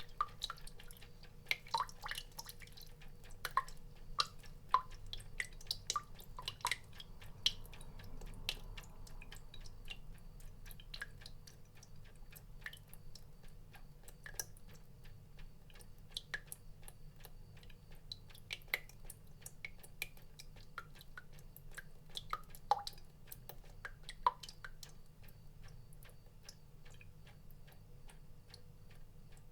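Water drops falling into water: irregular, short plinks at changing pitches, several a second at first and sparser later on, over a faint steady low hum.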